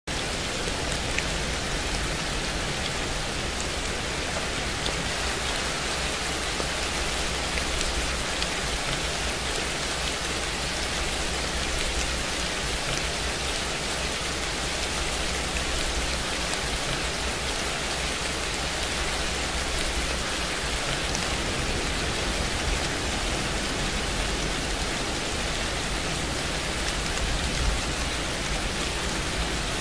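Steady, even rain sound with no change, used as the masking track of a subliminal audio.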